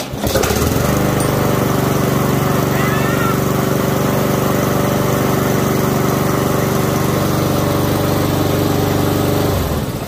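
Lawnmower engine starting up at once and running steadily at a constant speed, then cutting off near the end.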